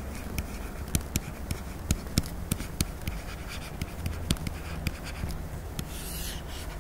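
Stylus writing on a pen tablet: a string of small, irregular taps and scratches as a word is handwritten.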